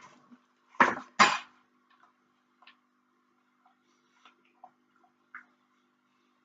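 Eating sounds: two short crunches close together about a second in, as of biting into crispy fried corn-tortilla flautas, then a few faint clicks of chewing over a low steady room hum.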